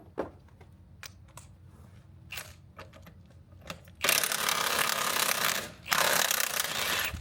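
Scattered clicks and knocks of hand tools on metal, then a power tool run in two loud bursts, about four and six seconds in, working the bolts of the panhard bar.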